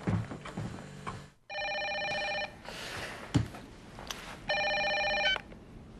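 Telephone ringing twice, each ring an electronic trill about a second long, with a short thump between the rings.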